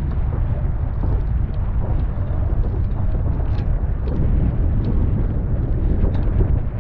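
Strong wind buffeting the boat-mounted camera's microphone in a steady low rumble, over water rushing past the hulls of a Nacra 15 catamaran sailing fast, with a few faint ticks of spray.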